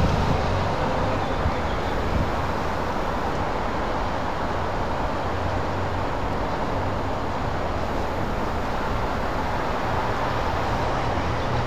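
Steady low rumble of motorway traffic with a constant low hum, no separate bangs or impacts.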